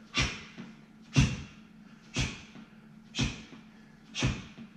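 A man's forceful exhalations, each with a thud, about once a second, five times, as he throws strikes in a boxing fitness drill on a rubber gym floor. A faint steady hum sits underneath.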